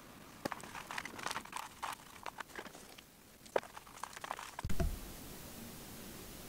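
Paintbrush mixing paint in a clear plastic tray, with irregular light clicks and crinkles of the brush and plastic. About five seconds in there is a low thump, then only a steady hiss.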